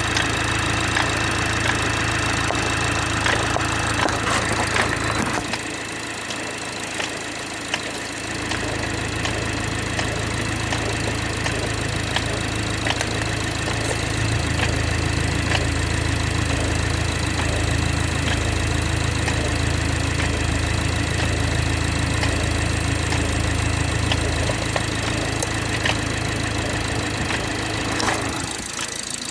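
BMW 430i xDrive's turbocharged 2.0-litre B46/B48 four-cylinder engine idling on a cold start. The owner calls the noise it makes in cold weather weird. Its low hum drops away for a couple of seconds about five seconds in, then comes back.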